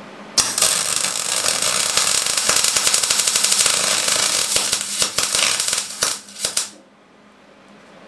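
MIG welder's arc crackling steadily as a bead is laid on a steel frame. It starts about half a second in and stops with a few sputters near six and a half seconds, over a low steady hum.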